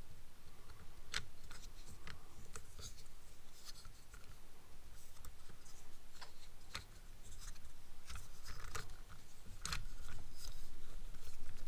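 Plastic cell phone clamp mount being handled and fitted into place: irregular small clicks and light scraping, with sharper clicks about a second in and near the end.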